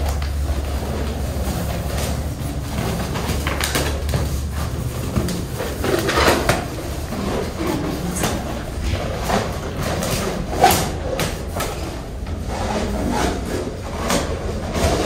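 Latex balloons rubbing, squeaking and bumping against each other as clusters are handled, with a low steady hum that stops about four and a half seconds in.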